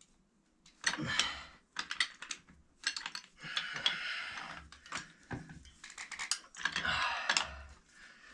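Pipe wrench working threaded steel well pipe and fittings: irregular metal clicks and scraping in short bursts as the fittings are turned tight.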